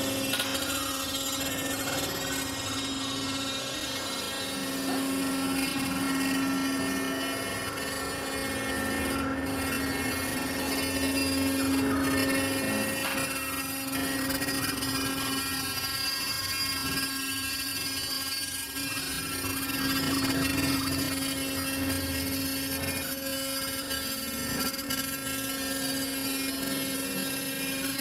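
CNC router spindle running at a steady high speed, its bit carving a block of white foam: a constant whine with many overtones that swells and eases slightly in loudness as the cut goes on.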